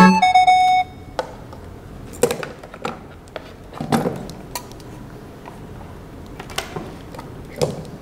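A short music cue ends about a second in. After it, scattered light clicks, knocks and rustles of electrical wires and a small power-supply box being handled on a workbench.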